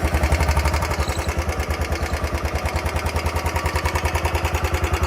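Royal Enfield Bullet 350's air-cooled single-cylinder engine idling just after starting, with an even beat and a 'kit kit kit' ticking from the engine. The service centre put the noise down to the engine running short of oil, and to worn piston rings or a worn cylinder block.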